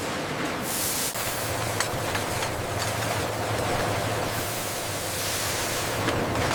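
Factory processing-line machinery running: a steady rushing noise with a low hum that comes in about a second in, and a few faint clicks.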